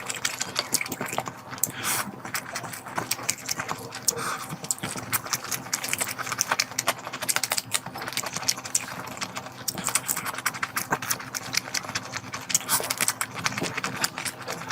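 A person eating curry with loud, close-up chewing and wet lip-smacking, a rapid, irregular run of small clicks and squelches, over a faint steady hum.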